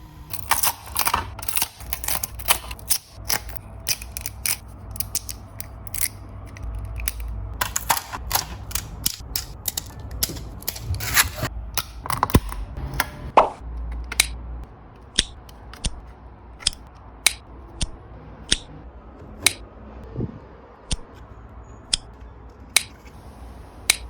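A run of sharp mechanical clicks over a low hum: fast and irregular at first, then spaced out to roughly one click a second in the second half.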